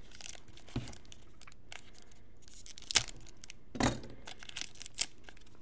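Foil wrapper of a trading card pack crinkling and tearing as it is worked open, with several sharp snaps, the loudest two near the middle. The wrapper is hard to get open.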